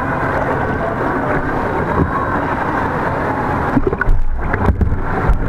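Muffled water sloshing and splashing close to a camera held at the waterline of a pool. In the second half come a few low thumps and brief muffled dropouts as the water washes over the camera.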